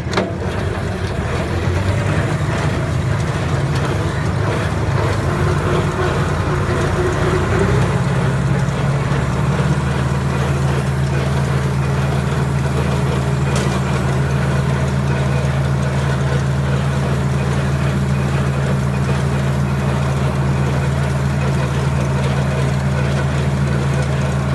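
John Deere 4020 tractor's engine running under load while pulling a PTO-driven hay baler. The engine note changes about eight seconds in, then holds steady.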